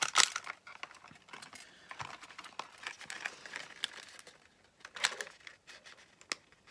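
Folded paper lantern crinkling and rustling as it is handled and pressed in the fingers, in irregular small crackles, loudest at the very start and again briefly near the end.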